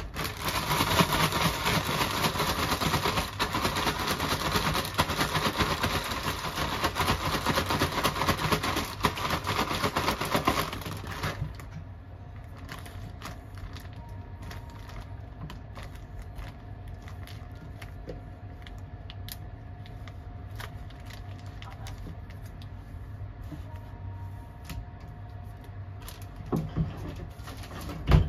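Plastic zip bag crinkling and rustling loudly as hands mix and knead salted cabbage with kimchi seasoning inside it. After about eleven seconds it drops to faint rustles and scattered clicks as the filled bag is pressed flat, and there is a sharp knock near the end.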